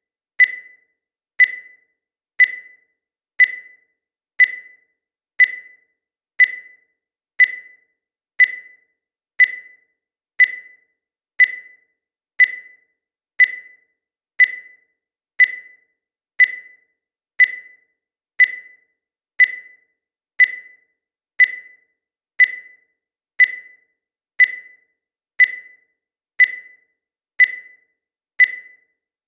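Digital countdown timer beeping once a second: a short, high beep that dies away quickly, repeated evenly.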